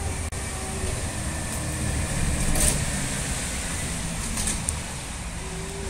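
Steady outdoor background noise: a low rumble with a hiss over it, with distant road traffic.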